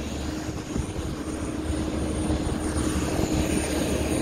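Parked jet airliner's turbine running steadily: a constant high whine over a low drone.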